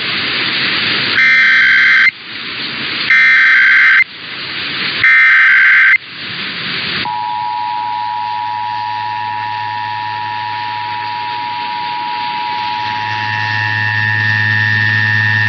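Emergency Alert System signals received over the radio: three one-second bursts of SAME header data, with hiss between them, then the steady two-tone EAS attention signal from about seven seconds in. A low hum comes up under the tone near the end.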